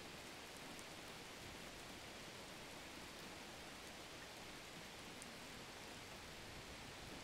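Faint steady hiss, even throughout, with no distinct sounds standing out.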